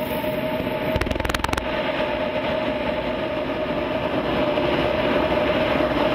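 Gas burner firing a pottery kiln, burning steadily: an even rush of flame noise with a steady tone running through it. There is a short run of clicks about a second in, and it grows slightly louder in the last couple of seconds.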